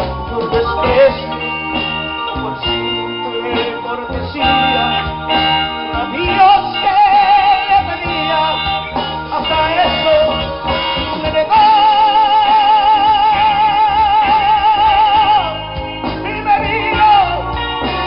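A band with keyboard, guitar, bass and drums playing an instrumental passage of a Latin romantic song, no words sung. A long held lead note with a wavering vibrato runs for about four seconds in the second half.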